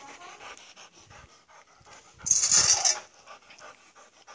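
Large black dog panting quickly close to the microphone, with one loud rushing burst of noise about two seconds in.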